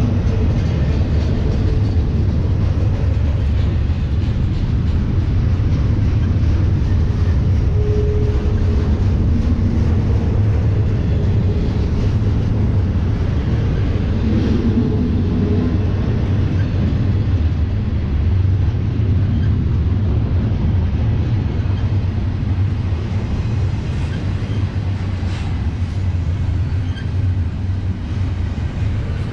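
Double-stack intermodal well cars rolling past close by: a steady, loud low rumble of steel wheels on rail, with faint whining tones that come and go and a few clanks.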